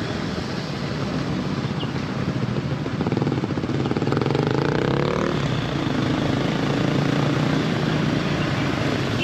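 Hero XPulse 200 4V single-cylinder motorcycle ridden on the road, its engine running steadily under wind noise, with the engine pitch rising between about three and five seconds in.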